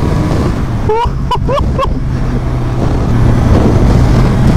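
Kawasaki Ninja 1000's inline-four engine running under way, mixed with wind rush at road speed. The engine note rises gently and gets a little louder from about three seconds in as the bike accelerates.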